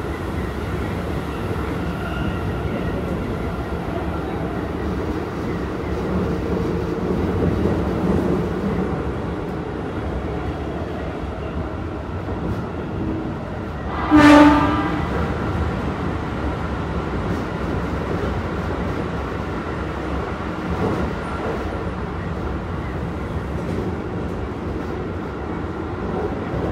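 Steady running noise of a Keikyu 1000 series electric train heard from inside the car, wheels on the rails with the motors running. About halfway through, a horn sounds once, short and loud.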